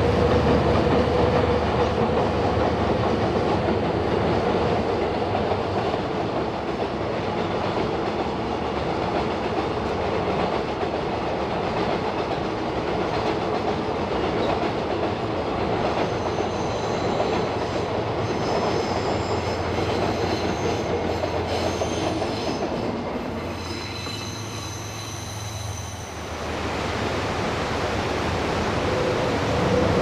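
Diesel-hauled freight train of container wagons crossing a steel girder bridge: a steady rumble with wheels clacking over the rail joints. Thin high wheel squeal in the second half.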